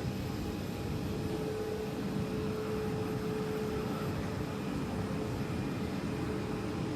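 Airplane engine noise running steadily, a constant hum over a rushing noise, with no rise or fall.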